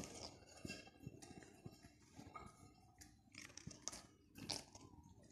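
African grey parrot grinding its beak: quiet, irregular clicking and rasping as the lower mandible scrapes against the upper, a little louder about three and four and a half seconds in. Beak grinding is the sign of a relaxed, content parrot.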